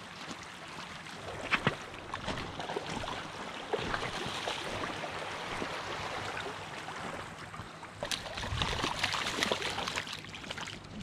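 Shallow water sloshing over a pebble shoreline as a hooked salmon thrashes in the shallows, with a few sharp clicks in the first seconds and the splashing loudest a couple of seconds before the end.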